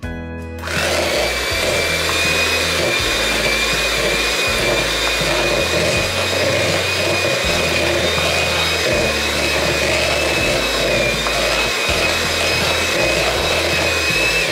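Electric hand mixer starting up about a second in, then running steadily with a high motor whine as its beaters whip egg yolks with mayonnaise, mustard and relish into a deviled-egg filling.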